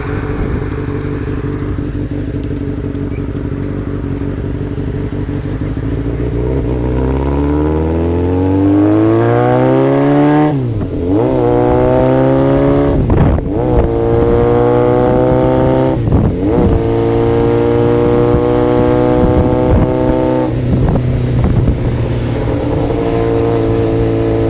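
Motorcycle engine running steadily at low revs, then accelerating with a rising pitch from about six seconds in. The note dips briefly at several gear changes, then holds steady at cruising revs.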